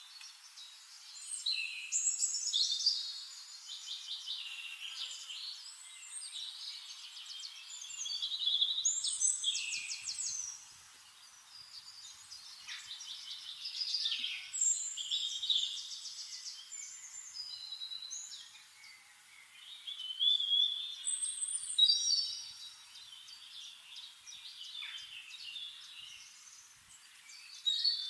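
Birds singing: a mix of chirps, rapid trills and short whistles, coming in bursts of song every few seconds with quieter gaps between.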